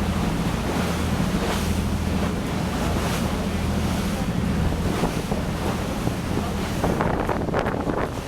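A boat under way: a steady low engine hum under heavy wind buffeting the microphone and rushing water.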